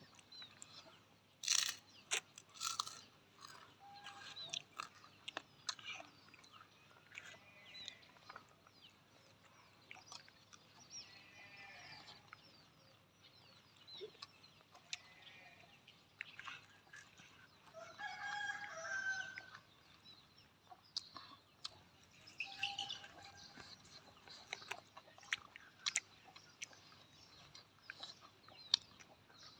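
Chickens clucking now and then, with short pitched calls, the longest about two-thirds of the way in, among scattered sharp clicks and taps.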